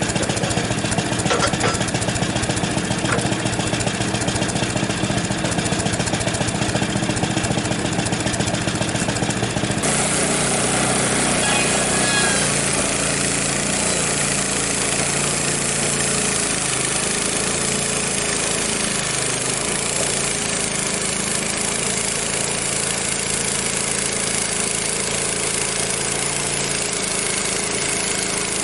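Gas engine of a Frontier OS23 portable bandsaw mill running steadily with the band blade turning. About ten seconds in the sound changes abruptly, turning brighter and hissier while the engine note shifts and wavers under load, as the saw works through a maple log.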